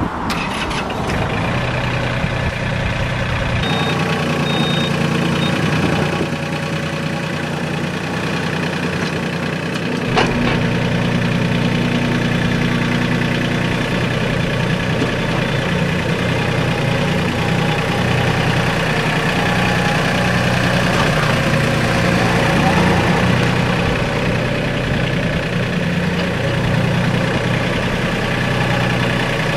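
New Holland Workmaster 25 compact tractor's diesel engine running steadily while the tractor is moved and its front loader raised; the engine note shifts a few seconds in and again about ten seconds in, with a single sharp click at the second change.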